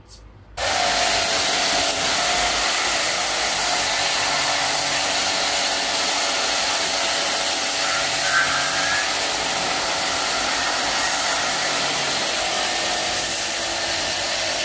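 Water jet from a pressure washer cleaning an air conditioner's indoor unit. The spray hiss starts suddenly about half a second in and runs steadily, as water washes the dirt out of the unit.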